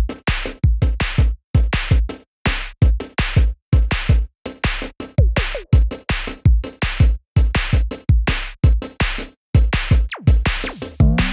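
Electronic background music with a heavy drum-machine beat, starting suddenly out of silence.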